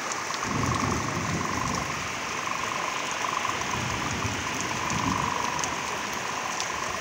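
Heavy rain pouring down, with gusts of wind rumbling on the microphone and a steady buzzing hum above the rain.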